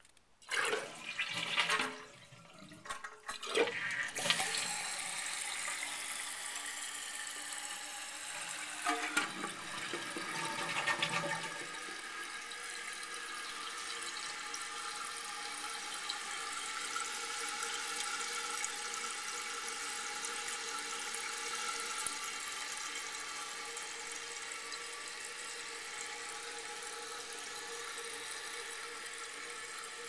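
Toilet flushing: a burst of clunks and rushing water in the first few seconds, then the tank's fill valve hissing steadily as the emptied tank refills.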